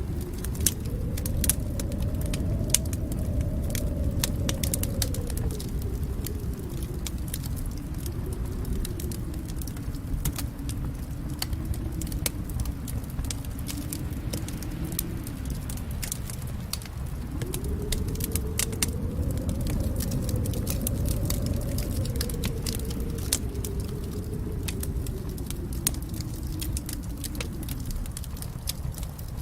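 Fire in a fireplace crackling, with frequent sharp pops and snaps over a low rumble that slowly swells and eases.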